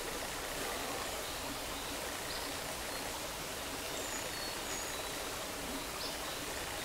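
Steady rushing and trickling of a small forest creek, with a few brief high bird chirps over it.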